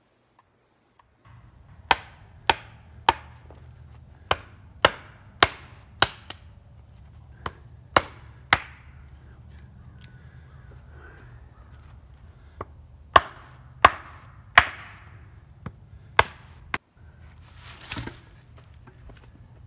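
Repeated sharp chops of a tool striking wood, in runs of two to four strikes about half a second apart with pauses between, over a steady low hum.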